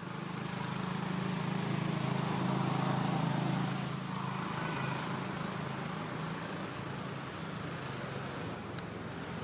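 A motor engine running steadily with a low hum, over a broad traffic-like noise; it is loudest about three seconds in, then eases off a little.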